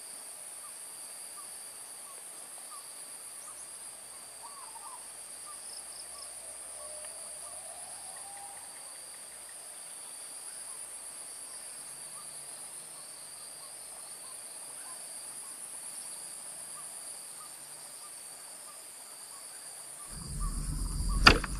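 Steady high-pitched buzzing of an insect chorus, in two even bands, with a few faint short birdcalls and one slow rising call. Near the end, louder knocking and handling noises break in.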